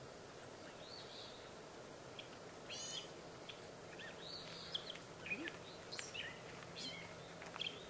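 Wild birds singing: many short, high chirping calls repeat from about a second in, over a faint steady background hiss.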